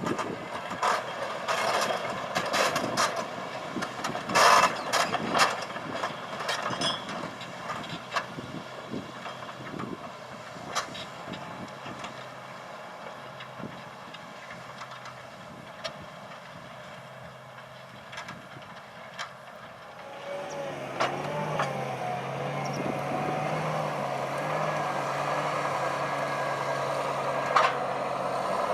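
John Deere 8335R tractor's six-cylinder diesel working with a nine-furrow plough. Rapid clattering and knocks of metal come through over the first ten seconds or so. About twenty seconds in, the engine note grows louder, with a wavering whine over it.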